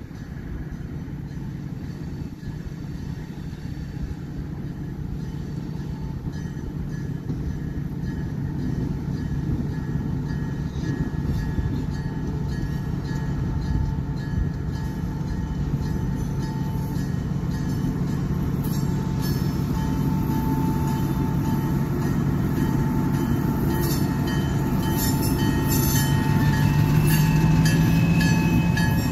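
Kansas City Southern diesel switcher locomotive approaching with a freight train, its engine rumble growing steadily louder as it nears. Near the end, sharp clicks and clatter from the wheels on the rails join in.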